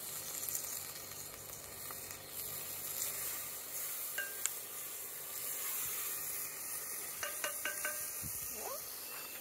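Bell peppers and chilis frying in a cast-iron Dutch oven, a steady sizzle with a few light clicks a little after halfway through.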